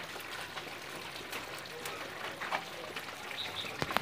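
Snails in coconut milk simmering and bubbling in a wok as the sauce reduces and thickens, with a few light clicks and a sharp knock near the end.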